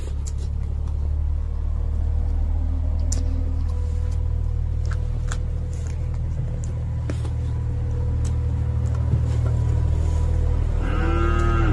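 A steady low rumble runs underneath, with scattered faint clicks and smacks of people eating rice by hand from metal plates; a short voice sound comes near the end.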